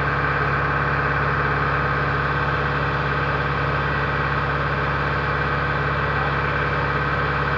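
Rice combine harvester's diesel engine running steadily at an even pitch, with no revving.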